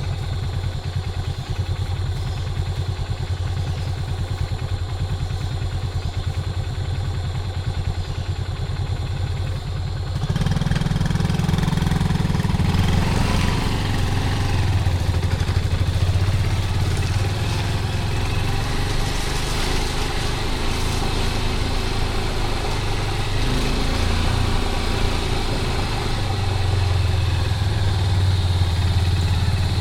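Small motorcycle engine running at low speed with a steady putter; about ten seconds in it gets louder and higher as the throttle opens, and it keeps running under load with small rises in speed.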